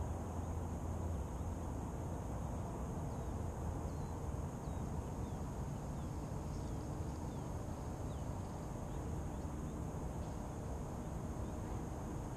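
Steady low rumbling wind noise on the drone camera's microphone as it lies in the grass, with a thin steady high whine and a few faint short high chirps in the middle.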